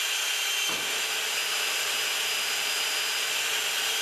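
Electric drill running at a steady speed, drilling a pop-rivet hole through the new sheet-steel trunk floor pan, with a steady whine over the motor's noise.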